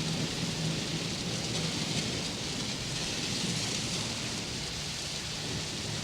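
Thunderstorm sound effect: steady rain falling, with low thunder rumbling under it.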